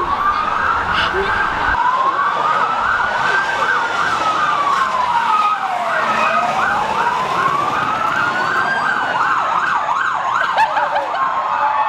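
Two emergency-vehicle sirens sounding at once. One wails in a slow rise and fall over several seconds; the other yelps in a fast up-and-down cycle, about four times a second.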